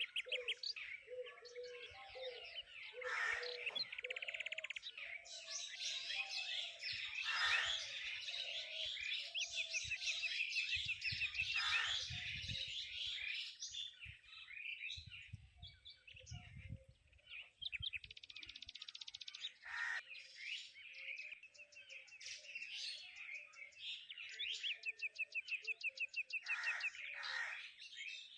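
Several birds chirping and singing together, with quick repeated chirps and, near the end, a fast even trill. A low rumble comes and goes twice in the middle.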